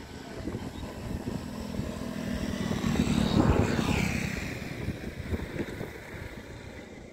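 An engine passing close by: its sound swells to a peak about three and a half seconds in, drops in pitch as it goes past, then fades away.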